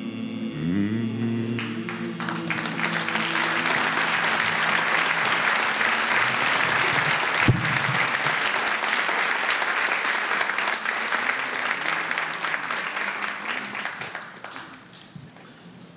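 Audience applause, swelling over the first couple of seconds and fading out near the end, with a single sharp thump about halfway through.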